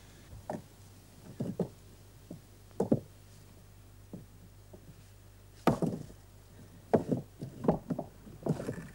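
Irregular knocks and clunks, about ten spread unevenly, the loudest about two-thirds of the way through: tools and stones being worked as a field stone is pried loose with a lever pole.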